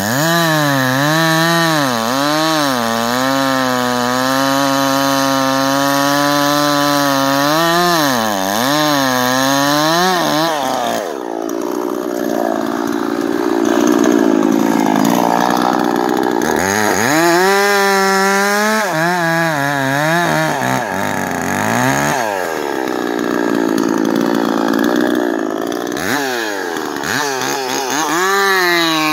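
Dolmar PS-5100S 50cc two-stroke chainsaw with a 20-inch bar and full-chisel chain bucking a hackberry log. The engine runs hard and its pitch rises and dips over and over as the chain bites. For several seconds in the middle, and again later, it bogs down and goes rough under the load of the cut.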